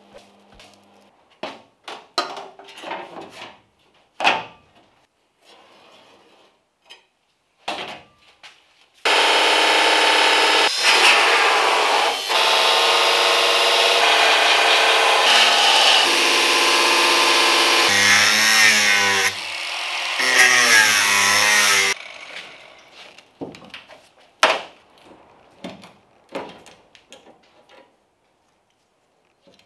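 Angle grinder with a thin cut-off disc cutting through the rusty sheet-metal lip of a car's rear wheel arch. It runs loud and steady for about thirteen seconds, its pitch wobbling near the end as the disc bites. Before and after it come scattered short clicks and scrapes of metalwork.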